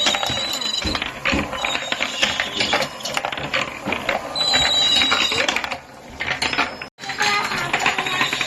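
Marbles rolling and clattering down a handmade wooden marble run: a dense, continuous run of rapid clicks and rattles. The sound cuts out for an instant about seven seconds in.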